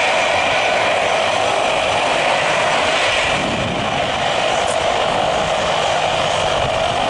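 Jet engines of a taxiing Citilink Airbus A320 running at idle: a loud, steady rushing drone.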